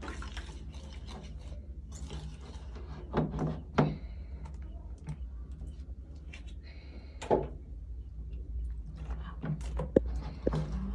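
Wire whisk clattering and scraping against a ceramic bowl as flour batter is mixed: irregular runs of small clicks with a few louder knocks. A short splash of water poured into the bowl from a plastic bottle a little past the middle, over a steady low hum.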